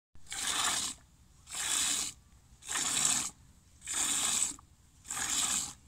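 Milk squirting from a cow's teats into a plastic bucket as it is milked by hand: five even, hissing squirts, about one a second, one for each squeeze.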